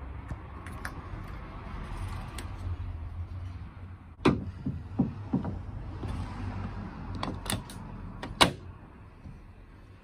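Sharp clicks and knocks of a VW Touran exterior door handle being handled at its door recess. There is a group of clicks about four seconds in and another a few seconds later, the last one loudest, over a low steady rumble.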